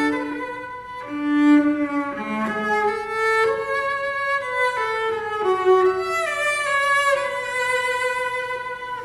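Solo cello playing a slow melody of long, held notes, accompanied by a string orchestra.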